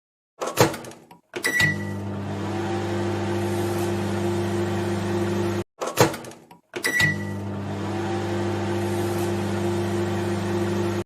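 Microwave oven sequence heard twice: a sharp clunk, a short single beep, then the steady hum of the oven running.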